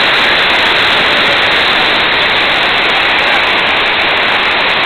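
Water spilling over a small rubber dam's spillway: a steady, loud rush.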